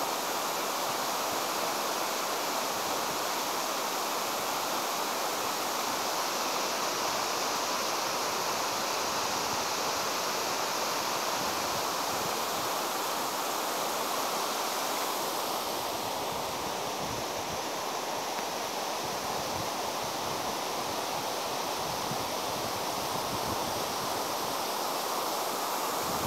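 Steady rushing of a flooded river running fast over rocky rapids.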